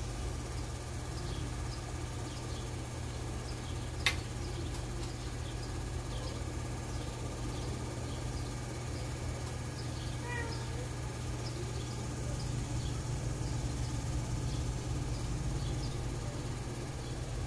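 Crickets chirping faintly over a steady low hum, with a single sharp click about four seconds in.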